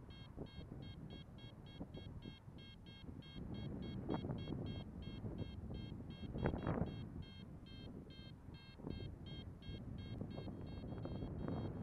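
Paragliding variometer beeping rapidly, about four short electronic beeps a second, signalling lift while the glider climbs in a thermal. Low wind rumble on the microphone comes and goes underneath.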